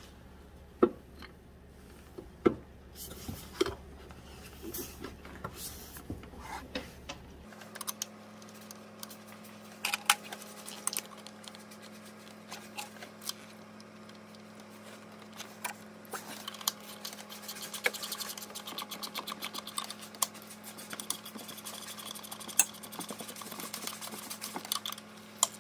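Scattered knocks and clicks of metal parts being handled in the engine bay. Then, from about two-thirds of the way in, a small socket ratchet clicks in quick runs as a bolt is tightened.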